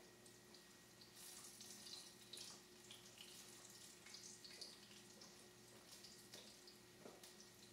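Near silence: kitchen room tone with a faint steady hum and faint scattered small clicks and hiss.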